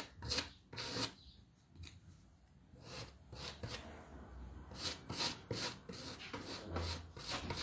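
Spatula scraping relief paste across a plastic stencil, in short repeated strokes, with a lull of about two seconds near the start.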